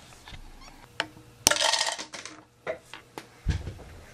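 Small plastic Playmobil toy pieces being handled: a few sharp clicks, a louder clatter about a second and a half in, and a dull knock near the end.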